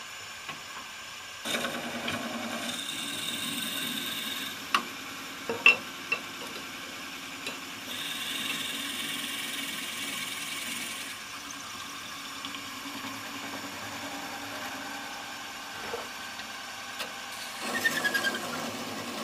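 Wood lathe running at slow speed while a drill bit in the tailstock chuck bores through a small wooden bead, in two long spells of drilling with a few sharp knocks between. Near the end a thin hand tool cuts into the spinning bead with a brief falling squeal, parting it off the stock.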